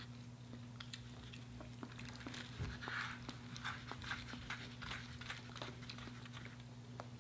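Close-up chewing and crunching of crispy fried chicken, with short crackling clicks from the breading, busiest in the middle, over a steady low electrical hum.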